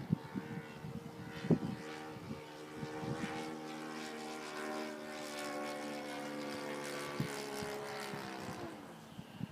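Yak 54 model aeroplane's engine and propeller droning steadily in flight, the pitch dropping slightly as it fades away near the end. A few sharp thumps in the first couple of seconds.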